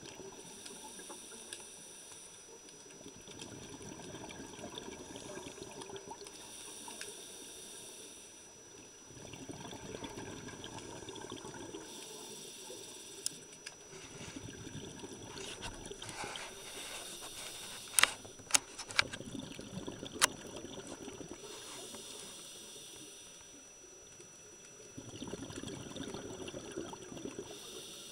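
Scuba diver breathing underwater through a regulator: a hiss on each inhale and a rush of bubbles on each exhale, alternating about every five seconds. Four sharp clicks in the middle stand out as the loudest sounds.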